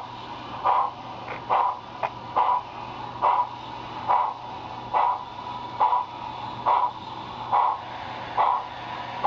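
Sound-equipped model steam locomotive chuffing slowly in an even rhythm, a little over one chuff a second, over a steady faint hum, as the train backs along.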